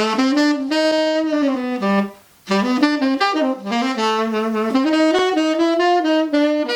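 Saxophone played on a used Rico orange-box 3.5 reed: a running melodic phrase of quick, stepwise notes, broken by a short breath about two seconds in. The tone is big and punchy.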